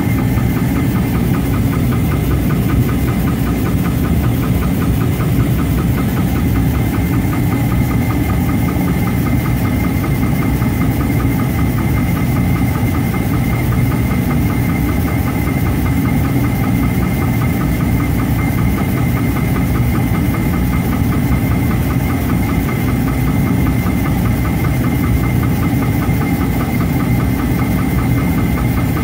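Steady mechanical running, like an engine or motor-driven machine, with a constant high whine over a fast, even pulsing drone that never changes.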